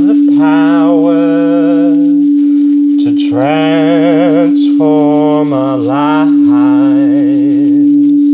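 A voice singing a chant in four long, wavering phrases over the steady hum of a singing bowl, which holds one pure tone throughout.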